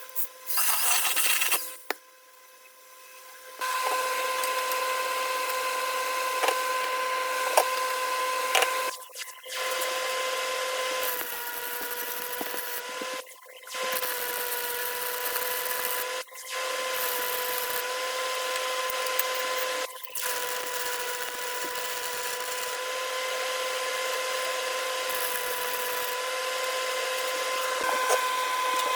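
Electric power tool running at a steady pitch on steel, with a hiss over the tone and several abrupt short breaks.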